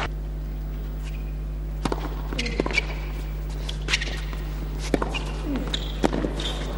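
Tennis ball bounced a few times on a hard court, then the sharp pops of racquet strokes as a serve and rally begin, roughly a second apart, over a steady low hum.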